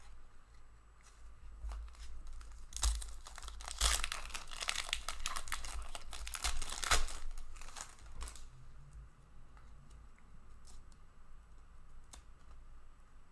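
A trading-card pack wrapper being torn open and crinkling, starting about three seconds in and lasting about five seconds. After that come quieter rustles and clicks of cards being flipped through by hand.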